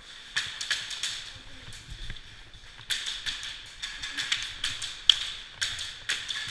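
Irregular sharp clicks and knocks, a few a second, with a cluster in the middle and the loudest one about five seconds in.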